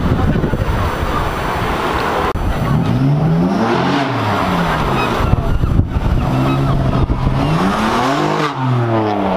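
Sports car engine revving hard, its pitch climbing and then dropping twice as it pulls away.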